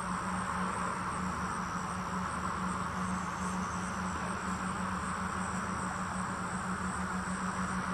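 Insects chirring steadily in an even, continuous chorus, over a steady low hum.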